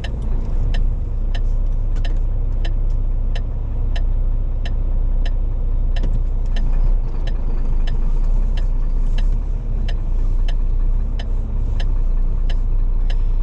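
Diesel engine of a rigid HGV lorry running slowly, heard from inside the cab as a steady low rumble, with a light click repeating about three times every two seconds.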